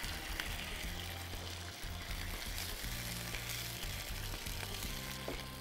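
Chicken pieces sizzling in hot oil in a frying pan, with a vinegar liquid of chopped dried chilli, garlic and ginger just added, and a wooden spatula stirring through them.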